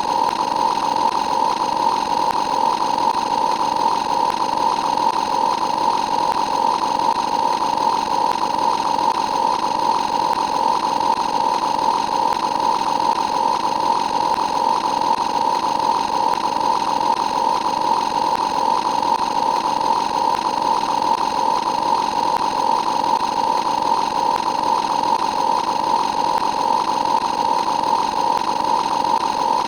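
A continuous sound effect: a steady drone held at one mid pitch, unchanging in level and without a break.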